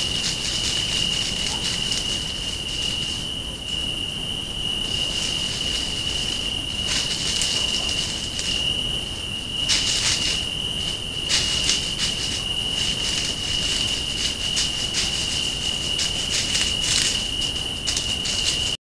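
A continuous high insect trill, like a cricket's, held at one steady pitch throughout, over scattered crackling rustles.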